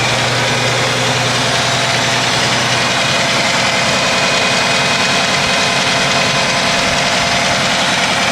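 Jeep CJ7's 4.2-litre inline-six idling steadily, with a fine, even ticking. The engine is misfiring on cylinder number 5, which the owner puts down to a stuck lifter.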